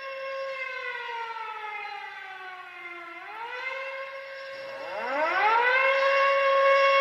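Air-raid siren wailing: a steady tone that slides down in pitch over about two seconds, then rises back up to the same pitch and holds, louder near the end.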